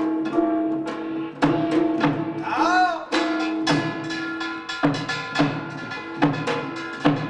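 Korean folk percussion ensemble of the samul nori kind playing: repeated drum strokes over the steady ringing of struck metal gongs, with a short rising-and-falling tone a little under three seconds in.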